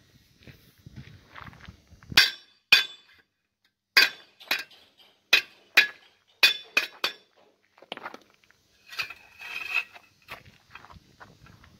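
Small hammer striking a steel dust shield from a ZIL truck's wheel hub against an anvil to straighten it: about a dozen sharp metallic clinks in irregular bursts, the loudest in the first half, and a longer ringing sound from the plate about nine seconds in.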